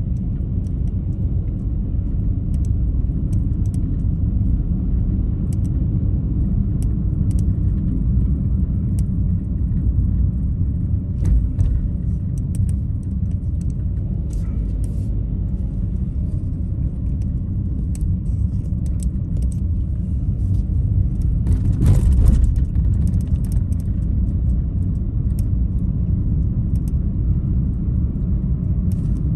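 Car driving along a city street: a steady low rumble of engine and tyres, with scattered faint ticks and a brief louder swell about twenty-two seconds in.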